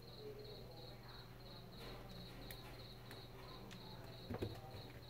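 Faint handling of wires and plug connectors on a workbench: a few small clicks and a louder short clatter about four seconds in. Underneath run a low steady mains hum and a high chirp about three times a second.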